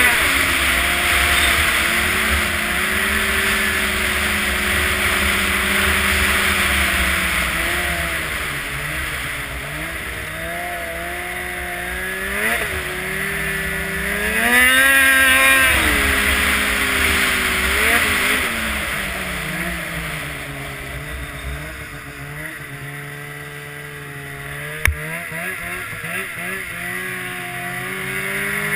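Snowmobile engine running under way, its pitch rising and falling with the throttle: it climbs sharply about halfway through, then settles lower and quieter for several seconds. A single sharp knock sounds near the end.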